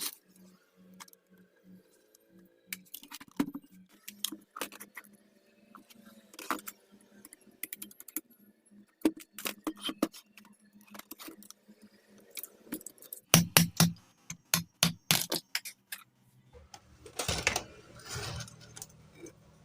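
Metal tools and parts of a 0.5 hp Kirloskar pump motor clicking and clinking as its cover is taken off. A run of louder knocks comes a little past the middle, and a short scrape comes near the end.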